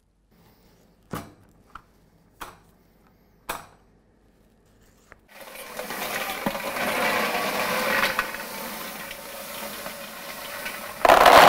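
A few faint taps, then from about five seconds in a dense, steady rattle of small round coated dragées tumbling against a stainless steel panning bowl. Near the end it swells into a louder rush as the candies are poured out.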